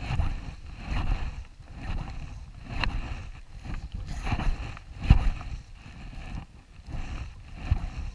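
Small waves sloshing and lapping close by, rising and falling about once a second, with a few short slaps of water.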